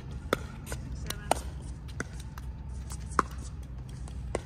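Pickleball rally: sharp hollow pops of paddles striking the plastic ball and the ball bouncing on the hard court, about one a second, the loudest about one and a half and three seconds in.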